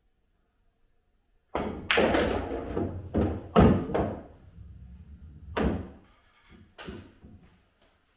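A pool shot on a Diamond pool table: the cue strikes the cue ball, the balls knock together, and the yellow ball drops into a pocket and rolls inside the table with a low rumble. Several sharp clacks and thuds come in quick succession from about a second and a half in, then a few lighter knocks near the end.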